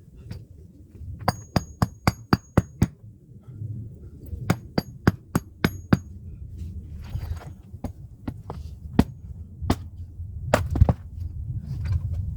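Hand axe striking firewood: sharp knocks in two quick runs of about six strikes, then several single strikes spread apart, sped up to double speed.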